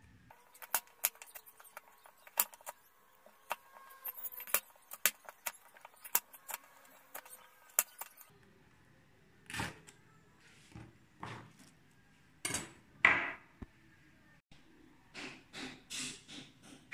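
Kitchen knife slicing kamias (bilimbi) fruits on a cutting board: irregular sharp clicks as the blade meets the board. About eight seconds in, the sound changes to louder, heavier knocks a second or so apart, which come quicker near the end.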